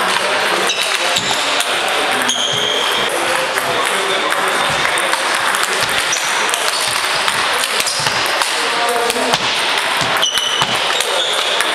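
Table tennis ball clicking and pinging off hardbat bats and the table during a rally, over a murmur of voices in a large hall.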